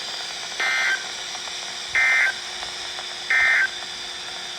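EAS end-of-message data bursts from a weather radio's speaker: three short, identical warbling digital bursts about a second and a half apart, over a steady radio hiss and hum. They mark the end of the flash flood warning broadcast.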